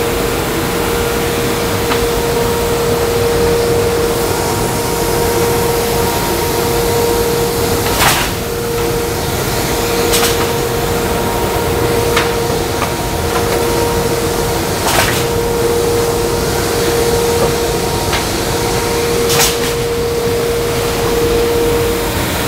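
Industrial belt sander running with a steady hum and noise as reclaimed wood flooring boards feed across its abrasive belt. A few sharp knocks come at irregular intervals, the loudest about a third of the way in and again past the middle.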